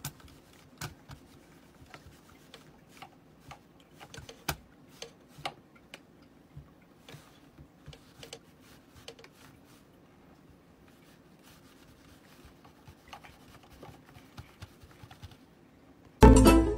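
Faint, irregular clicks and ticks over a low steady hum. About half a second before the end, loud plucked-string music cuts in.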